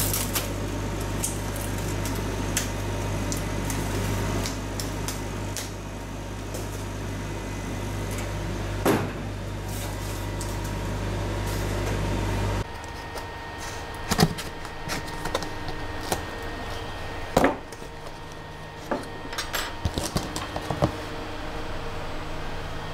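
A laser cutter runs with a steady low hum while cardboard sheets are lifted and shifted in its bed, with light rustles, clicks and a knock. The hum cuts off, and scattered sharp taps and knocks follow as a panel is fitted onto an aluminium-extrusion frame.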